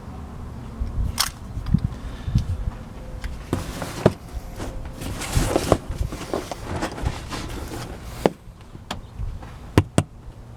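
Irregular handling noises: scattered knocks and clicks, with a few seconds of rustling in the middle and two sharp clicks near the end.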